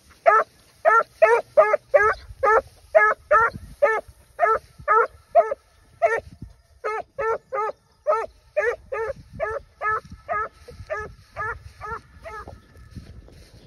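Six-month-old hunting puppy barking on the trail of wild boar: a quick string of short barks, about two to three a second, with a brief gap about six seconds in, stopping near the end.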